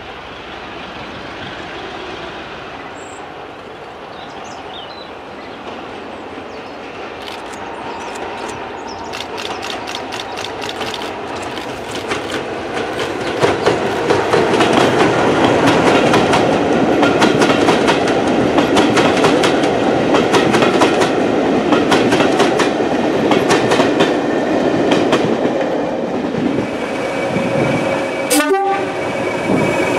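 Preserved British Rail diesel locomotive hauling a train past, growing louder over the first dozen seconds, with rapid clicking of wheels over rail joints as the train goes by.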